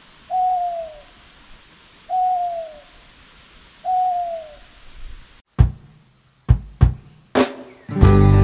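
Owl hoot sound effect: three single hoots, each a short falling note, about two seconds apart. Then a few sharp drum hits, and music with guitar begins near the end.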